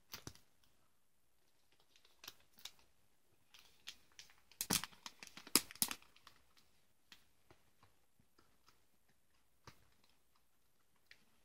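Faint crinkling and rustling of a plastic comic-book bag as its taped flap is worked open to free the comic, in scattered short bursts, loudest about five seconds in.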